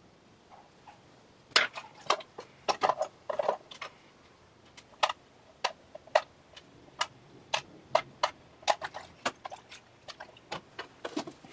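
Small metal carburetor parts clinking as they are dropped into the wire parts basket of a can of carburetor dip cleaner: a string of sharp, irregular clicks and taps, starting about a second and a half in.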